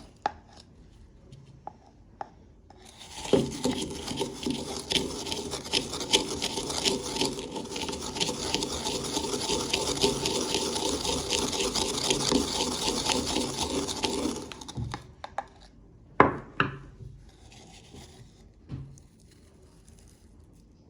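Pringles crisps being ground in a spice grinder: a dense crunching, grating run of about eleven seconds that starts a few seconds in, followed by a single sharp knock.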